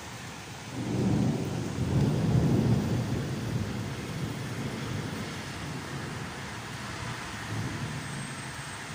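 A long roll of thunder that swells about a second in, peaks over the next two seconds and slowly dies away, over the steady hiss of rain.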